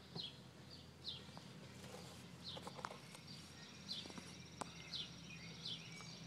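Faint birdsong: a bird repeating short, downward-slurred chirps about once a second. A thin, high, steady trill joins about three seconds in.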